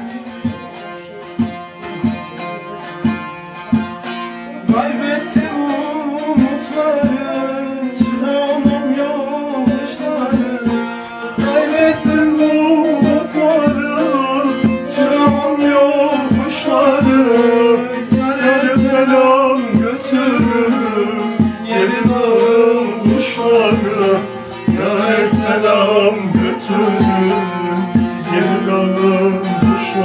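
Bağlama (long-necked Turkish saz) strummed in a steady rhythm, joined about five seconds in by a man singing a Turkish folk song in a long, wavering, ornamented melody.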